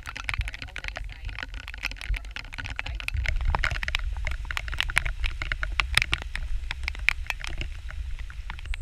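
Raindrops tapping hard and irregularly on the camera and a plastic rain poncho, many sharp ticks a second. A steady low rumble runs underneath and grows from about three seconds in.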